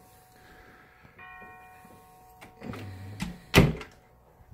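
A white interior closet door being pushed shut, with a short rumble of handling and a single sharp bang about three and a half seconds in. Before it, faint steady ringing tones hang in the room.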